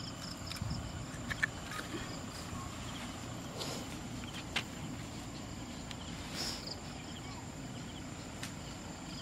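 Steady outdoor background with a thin high insect drone, broken by a few soft clicks and rustles as hands handle fish and grass stems.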